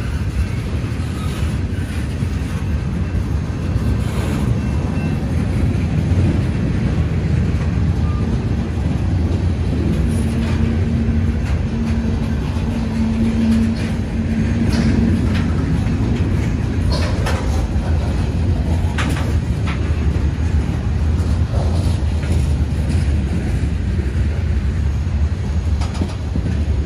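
CSX freight train rolling by: a steady heavy rumble of diesel locomotives and railcars with wheels clacking on the rails. A held low tone runs through the middle, and a few short sharp sounds come in the second half.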